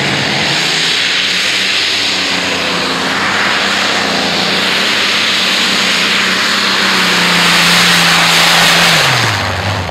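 Modified pulling tractor powered by three Allison V12 aircraft engines at full throttle, dragging the weight-transfer sled down the track. It makes a loud, steady roar whose engine note drops near the end.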